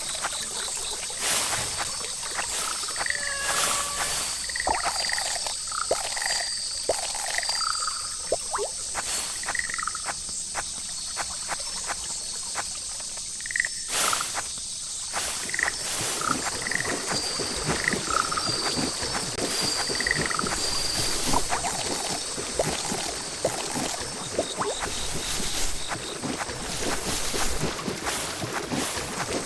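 Frogs calling in short, separate croaks scattered irregularly, over a steady high-pitched insect drone.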